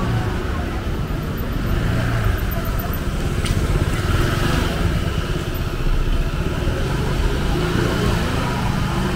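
Low-speed street traffic: cars and a delivery motor scooter passing close by, engines running. A short sharp click about three and a half seconds in.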